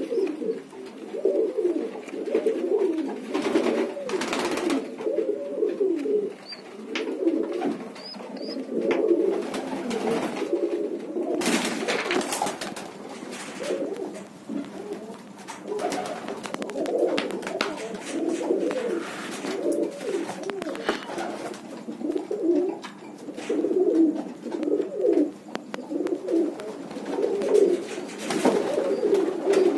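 Several domestic pigeons cooing continuously, their calls overlapping, with a few short rustles in between.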